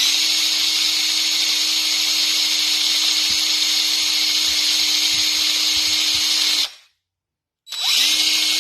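An electric buffing wheel motor running at full speed, with a steady low hum and a high whine. It cuts off abruptly a little before the last two seconds, then starts again about a second later, its pitch rising as it spins up.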